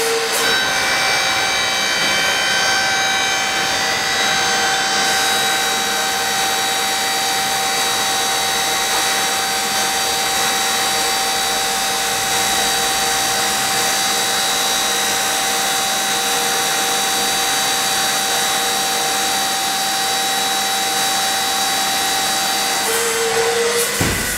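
Hydraulic power unit of a bulk-bag hoist running steadily under load with a high whine while the lever is held to lift a tote bag, cutting off at the very end as the lever is let go.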